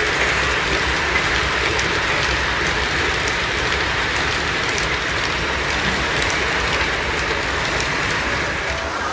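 O gauge electric model train's passenger cars rolling along the track: a steady rushing rolling noise with a few faint clicks.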